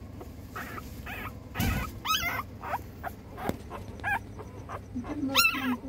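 Young puppy crying: a series of short, high-pitched whimpers that rise and fall, the loudest about two seconds in and again near the end.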